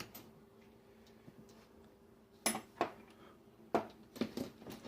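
Metal hand tools, sockets among them, clinking as they are handled and set down: two sharp clinks about halfway through and a quick cluster of several more near the end, over a faint steady hum.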